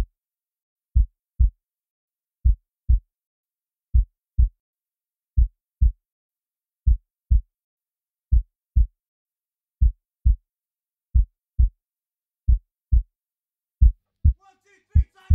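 Heartbeat sound effect: low double thumps in a slow lub-dub rhythm, one pair about every one and a half seconds, with silence between. Faint music begins to come in near the end.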